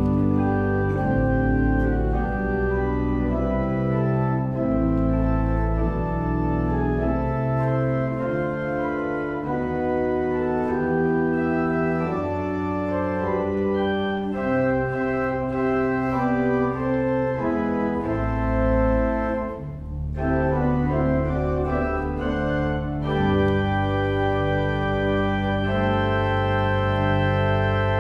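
Organ music: full sustained chords changing every second or two over long, deep bass notes, with a short drop in the sound around two-thirds of the way through.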